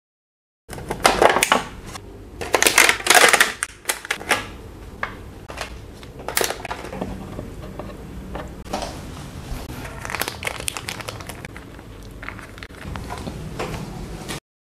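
Crinkling and clicking of clear plastic takeaway containers, with burgers being handled and set down on a wooden board. The crackling is loudest and densest in the first few seconds, then goes on more lightly.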